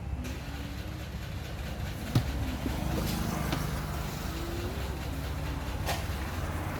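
A steady low mechanical hum, with a few sharp clicks.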